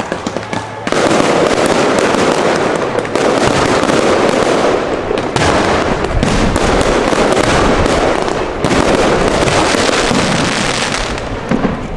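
Aerial fireworks going off in a dense, rapid barrage of bangs and crackles, after a few separate pops in the first second. The barrage thins out near the end.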